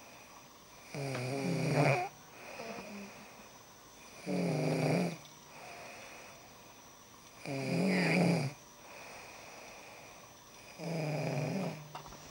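A sleeping woman snoring: four loud, pitched snores, each about a second long and about three and a half seconds apart, with a fainter breath between each pair.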